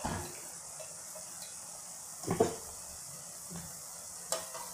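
A metal spatula knocks and scrapes against a metal kadhai three times: at the start, loudest about halfway, and lightly near the end. Under it runs a faint, steady sizzle of khoya masala frying on a low flame.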